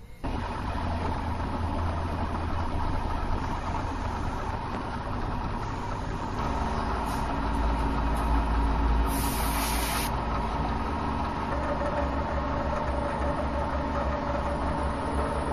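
Milling machine running, its end mill cutting a pocket into a round mild-steel part, with a steady hum and a steady whine from the spindle and cut.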